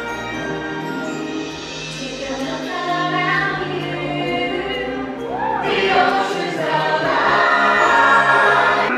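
Stage-show music with a choir singing, growing louder about halfway through.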